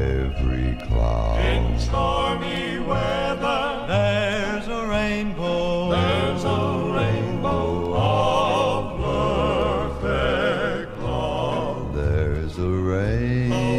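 Southern gospel male quartet singing in harmony, with vibrato on held notes over a steady low bass line.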